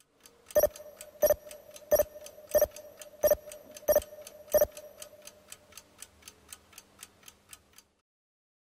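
Clock-ticking sound effect: seven loud ticks about two-thirds of a second apart, with faint ticks between them. Then only fainter, quicker ticks, fading out near the end.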